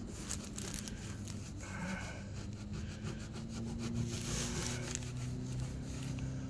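A cloth rag rubbing back and forth against a fiberglass boat hull, wiping a scraped spot clean with acetone before sanding, in repeated scratchy strokes.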